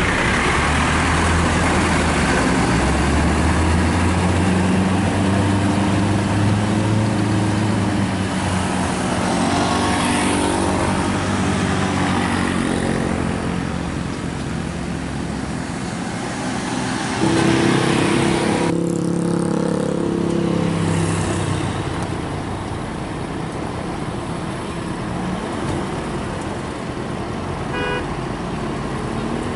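Hino tour bus's diesel engine running and pulling away past the camera, with its low drone rising and falling. A multi-tone vehicle horn sounds for a few seconds about two-thirds of the way through, and short horn beeps come near the end.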